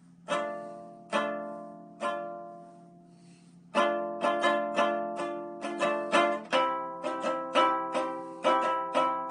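Six-string walnut Viking lyre tuned A, C, D, E, F, G, strummed: three slow chords that ring out and fade, then from about four seconds in a quicker run of strums, two or three a second.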